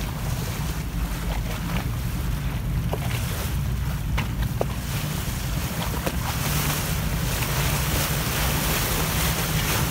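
Motorboat under way: a steady low rumble of the running boat and wind buffeting the microphone, over water rushing and splashing along the hull.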